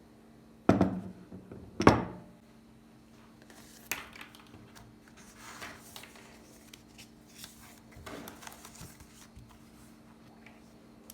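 Two sharp knocks about a second apart, then light scattered clicks, scrapes and rustling of objects being handled.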